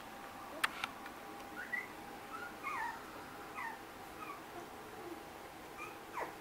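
Three-week-old Australian Labradoodle puppies giving a string of short, high squeaks and whimpers, each rising or falling in pitch, with a sharp click about half a second in.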